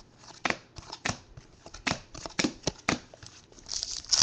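Trading cards being handled and flicked through by hand, a string of light snaps and taps from card stock sliding and striking card, with a louder crinkling near the end.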